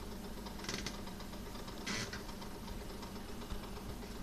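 Steady low mechanical hum, with two brief hissy rustles about a second and two seconds in.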